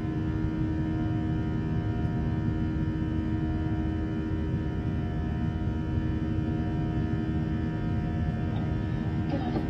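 Steady cabin noise inside an Airbus A321 airliner in flight: an even rush of engine and airflow noise with several constant hum tones, unchanging throughout.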